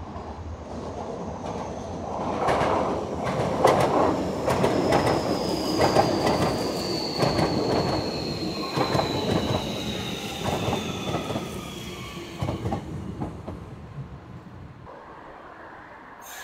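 Kobe Municipal Subway 6000-series train passing close by, its wheels clacking over rail joints in quick irregular knocks, with a high whine that slowly falls in pitch as it slows. It swells in about two seconds in and fades away near the end.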